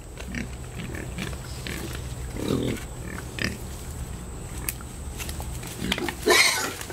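Several pigs grunting as they root and feed with their heads down, in short separate calls, with one louder, harsher call about six seconds in.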